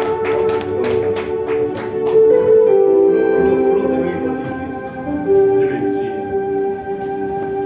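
Church keyboard music playing slow, held chords, with scattered handclaps in the first couple of seconds that die away.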